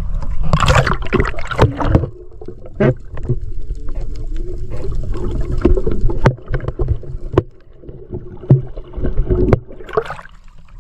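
Splashing as a diver slips into the sea from an outrigger boat. This is followed by muffled underwater sound with a steady low hum, scattered clicks and bubbling. A second burst of splashing and bubbles comes near the end, as the water churns around the camera.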